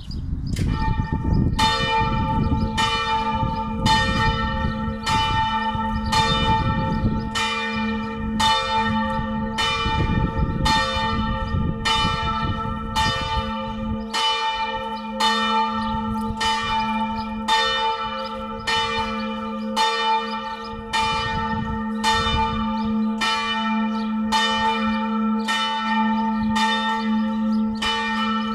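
Church bells of a four-bell tower tuned in G-flat, hung and rung in the Tyrolean manner, start ringing about a second in and strike at a steady pace of roughly one stroke a second, each stroke ringing on into the next. A low rumble lies under the first half.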